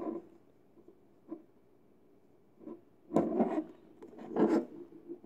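Raw eggs handled on a countertop: a couple of faint taps, then two louder stretches of eggshell rubbing and scraping against the counter as fingers move and tip the eggs.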